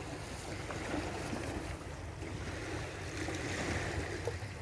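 Sea waves washing steadily against a rocky shore, a continuous even rush of water.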